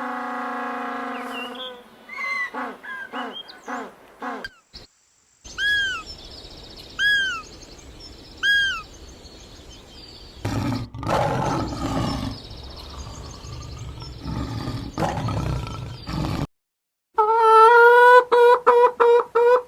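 A series of different animal calls, one after another: a held low call at the start, a few short calls, three arching high cries a bird might give, a long stretch of low, rough roaring, and near the end a run of fast repeated calls.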